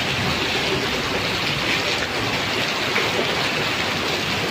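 Heavy rain pouring in a windstorm: a dense, steady hiss with a low rumble beneath it.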